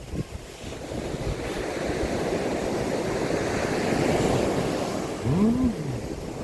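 Sea waves breaking and washing up a sandy beach, the rush swelling to a peak about halfway through and then easing, with wind on the microphone. Near the end there is a brief tone that rises and then falls.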